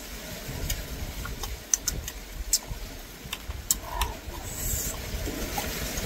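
Mouth sounds of someone chewing crisp green mango: a scattered string of sharp little clicks and smacks, with a brief crackle a little after the midpoint, over a steady low rumble.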